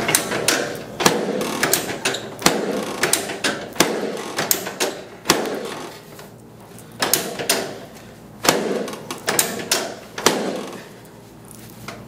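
Sharp clicks and knocks at irregular intervals, some in quick pairs, with rustling between them, from hands-on chiropractic work at a treatment table with the patient lying face down.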